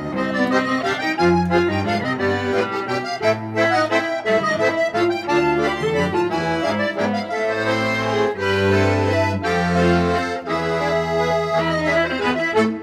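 Instrumental music for accordion, viola and cello, the accordion leading with a busy melody over long-held low notes.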